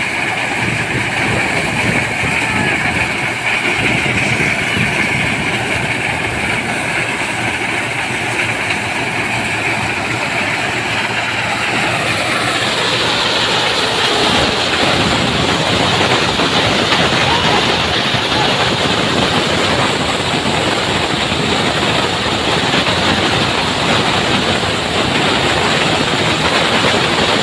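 Tractor-driven AMAR maize sheller running steadily under load as cobs are fed in, with the Massey Ferguson tractor engine beneath it. About halfway through the sound becomes a slightly louder, denser hiss as shelled maize kernels stream out of the outlet chute.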